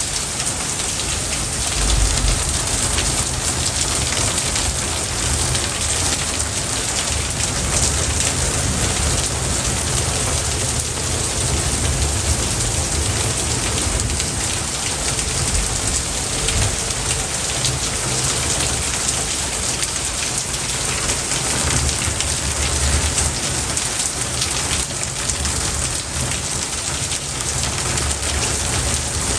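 Steady rain, an even hiss with no pauses, with deeper low rumbles about two seconds in and again past the middle.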